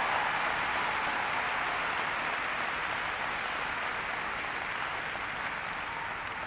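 Large arena audience applauding, a dense steady clapping that slowly dies down.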